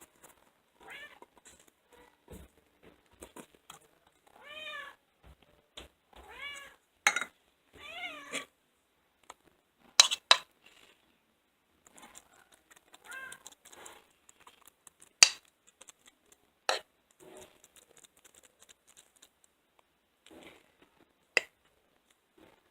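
Kitten meowing several times, short rising-and-falling meows mostly in the first half. These are interspersed with a few sharp clicks or taps, the loudest sounds, about ten and fifteen seconds in.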